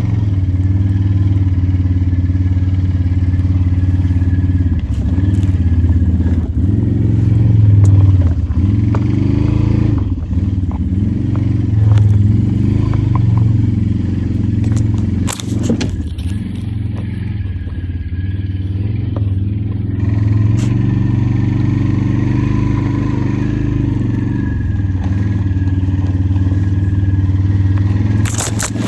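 ATV engine running while riding, its pitch rising and falling as the throttle changes, with a sharp knock about halfway through.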